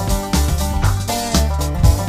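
Background music with a steady beat: an upbeat funk-style track with guitar, bass and drums.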